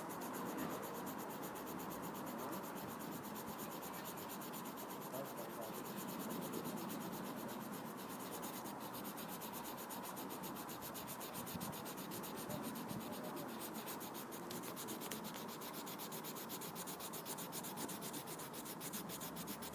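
A colourless blender pencil rubbing steadily over layered coloured pencil on paper, a faint continuous scratchy rubbing as the pigment layers are blended together.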